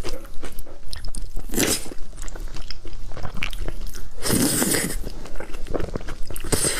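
Close-up eating of noodles in thick black bean sauce: wet chewing and smacking throughout, with two longer slurps drawing noodles into the mouth, about one and a half and four and a half seconds in.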